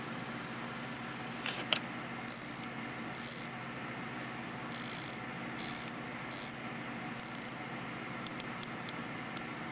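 Diver's watch bezel on a Marathon SAR being turned by hand, ratcheting in short runs of quick clicks, with a few single clicks near the end.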